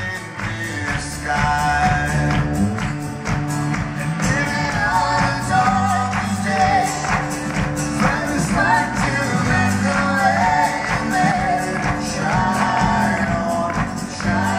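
A live folk-rock band playing a song: strummed acoustic guitar and drums under a sung melody, with the percussion keeping a steady beat.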